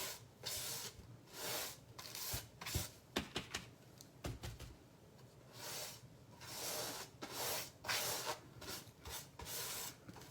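Stiff, crusty paintbrush dry-brushed in repeated short strokes, scratching cream and white paint across a stained surface, about one stroke a second with a short pause in the middle.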